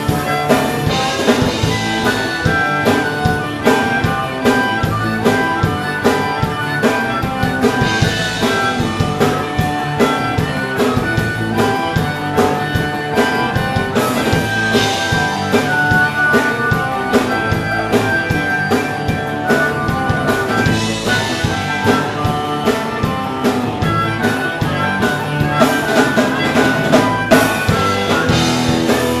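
Live rock band playing with electric guitars, bass and drum kit, a harmonica soloing over them in held notes and short phrases.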